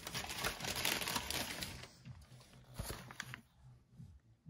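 Crinkling of a plastic film-sealed takeaway food tray as it is handled, for nearly two seconds, then a shorter crinkle about three seconds in.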